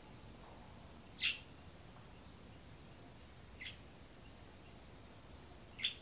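A small bird giving short, high chirps, three in all, a couple of seconds apart, over a faint steady background hiss.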